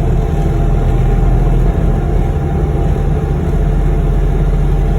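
A vehicle's engine running steadily with a low hum.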